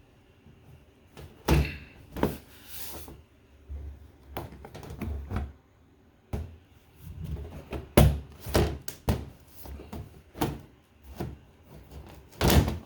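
Plastic back cover of a washing machine being handled and fitted into place: a series of irregular knocks and thuds, the loudest about eight seconds in and near the end.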